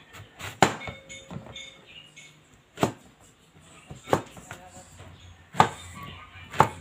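Large kitchen knife chopping through eggplant and striking the cutting board: five sharp knocks at uneven intervals.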